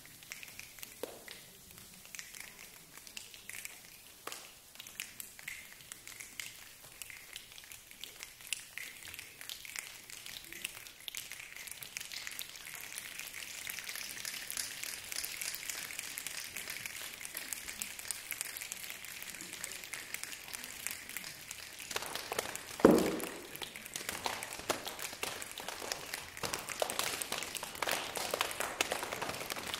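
A choir making a rainstorm with their hands: many people snapping, tapping and clapping together, a pattering like rain that builds gradually from faint to loud. One loud thump stands out about three-quarters of the way through.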